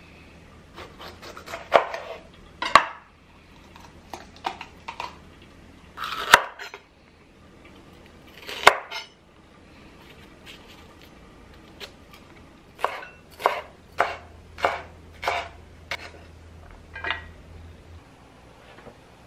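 Kitchen knife cutting a green bell pepper on a wooden cutting board. Scattered cuts and knocks of the blade on the board come first, then near the end a run of about seven even chops, a little more than half a second apart.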